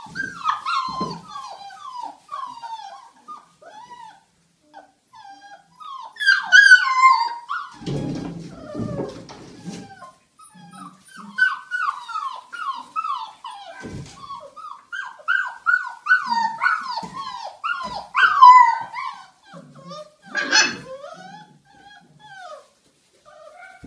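Belgian Malinois puppies yipping and whining in rough play: many short, high calls in quick succession, with a rougher, lower noise about eight seconds in.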